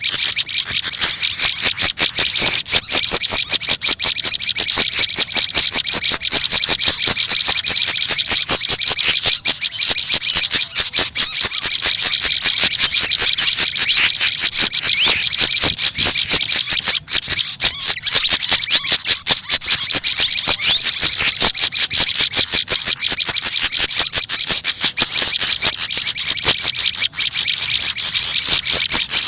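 Small songbirds, the Indonesian sikatan kipas (fantail flycatcher) and prenjak lumut, singing in a loud, unbroken run of very rapid high chirps and trills.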